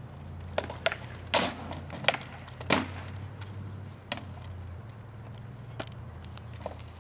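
Rattan practice swords striking shields and armour in SCA heavy sparring: a run of sharp cracks and knocks at uneven intervals, loudest between one and three seconds in, over a steady low hum.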